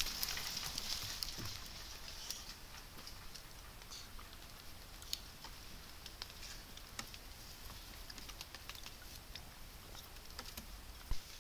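Black-and-gold howler monkeys drinking from a shallow water basin: small splashes and light patter, busiest in the first two seconds, then scattered soft ticks, with one sharper knock near the end.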